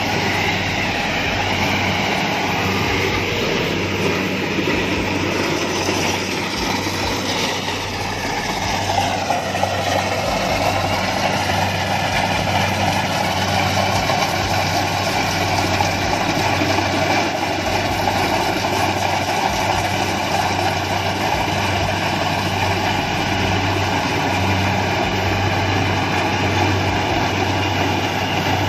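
Kubota DC-70 Plus rice combine harvester running steadily while it cuts and threshes standing rice, its diesel engine and machinery making a constant loud drone. The sound dips and shifts in pitch briefly about eight seconds in, then settles again.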